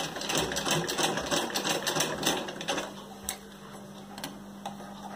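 Black domestic sewing machine stitching through heavy fabric: a fast, even clatter of needle strokes for about three seconds, then slowing to a few separate clicks. A reverse stitch is being sewn to lock the start of the seam.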